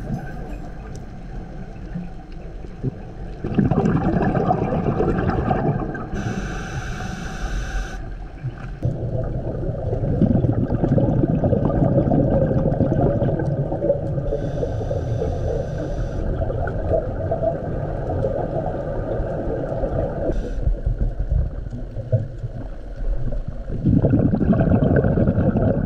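Underwater sound from scuba diving: regulator exhaust bubbles gurgling and rumbling in surges, with two short hisses of breath drawn through the regulator.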